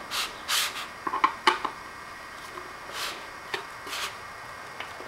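A glued flat-pack furniture joint being tightened up by hand: about five short scraping rubs, with a few small clicks between them.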